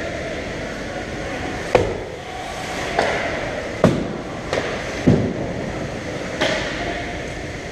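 Ice hockey play: a steady hiss of skates on the ice, with five sharp knocks of sticks, puck and boards, about a second apart. Some of the knocks carry a deeper thud, as of the puck or a player hitting the boards.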